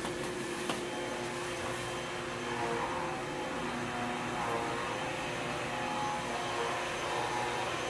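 Power tool running continuously: a steady mechanical drone with wavering pitched tones that grow stronger a few seconds in.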